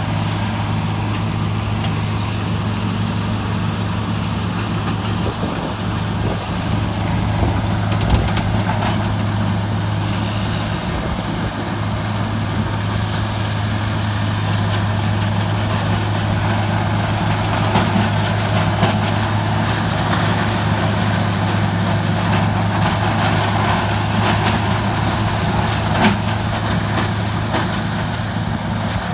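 Large diesel engine of a Morbark 3200 horizontal track grinder running steadily with a strong low hum. A thin high whine rises about halfway through and drops back near the end, and there are a few sharp knocks.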